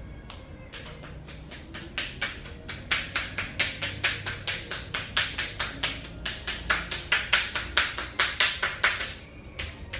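Hands tapping and slapping rapidly on a person's head during a head massage: a steady run of about four sharp slaps a second. It starts about two seconds in and stops near the end.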